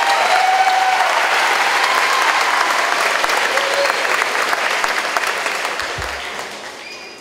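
Audience applauding, loud at first and dying away over the last two seconds, with a few voices calling out in the crowd near the start.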